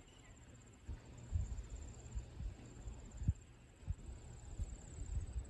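Wind buffeting the microphone in irregular low gusts, over a steady, high, rapidly pulsing insect trill.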